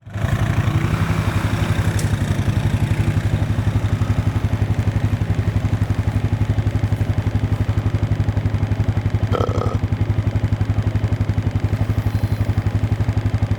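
Vehicle engine running steadily with an even, fast low pulsing. About nine seconds in, a short belch sounds over it.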